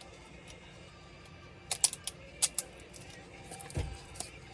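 Irregular sharp clicks and taps of small plastic and metal parts and tools being handled while a Dell Latitude 3301 laptop is taken apart. The clicks start a little over a second and a half in, and there is a dull thump near the end.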